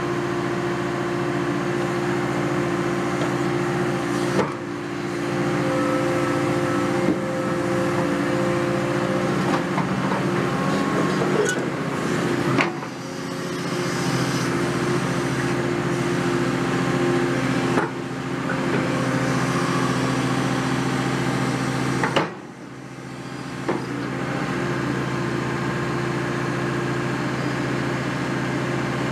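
A Caterpillar 330F hydraulic excavator's diesel engine running steadily under working load while the concrete pulverizer is worked, with a few sharp knocks and short dips in level along the way.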